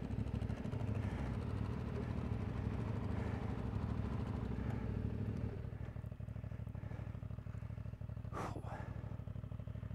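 Motorcycle engine, the CFMOTO 450MT's parallel twin, running steadily under way; about halfway through it eases back to a quieter, lower note.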